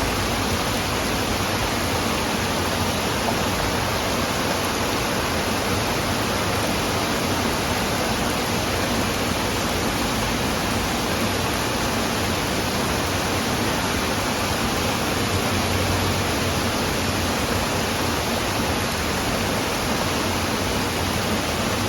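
Steady, even rushing noise with no rhythm or pitch, unchanging throughout and cutting off abruptly at the end.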